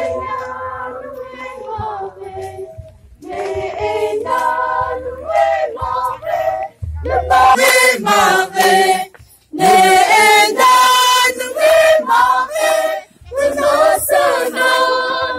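A group of voices singing together, loud, in phrases with long held notes and short breaks between them.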